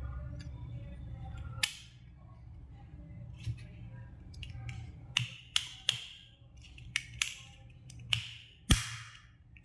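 Plastic clicks and snaps of a digital thermometer's back cover being fitted and pressed onto its casing: about nine sharp clicks, bunched in the second half, the loudest near the end, over a faint low hum.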